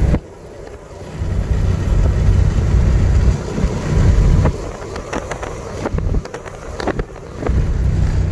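Low road and engine rumble inside a moving truck cab, with some wind on the microphone. It drops away suddenly just after the start and dips a couple of times later, with a few faint clicks.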